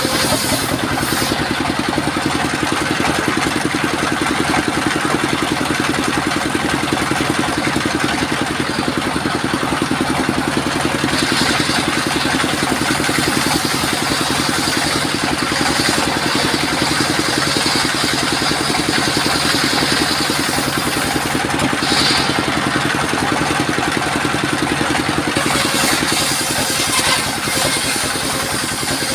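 Engine of a portable circular sawmill running steadily, with a brighter high-pitched edge coming and going a few times as the blade works the sengon wood.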